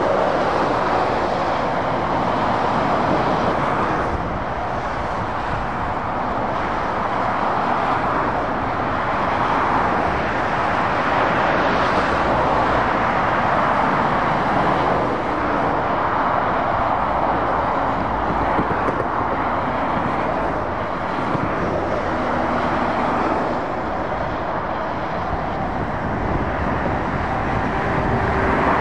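Motorway traffic: lorries and cars passing on the carriageway, a continuous tyre and engine rush that swells and eases as each vehicle goes by.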